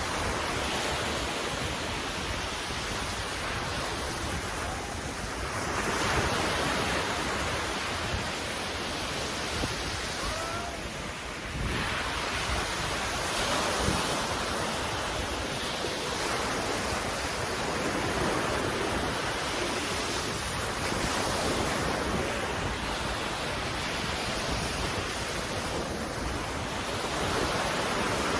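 Sea waves breaking and washing in, the surf swelling and easing every few seconds, with wind buffeting the microphone.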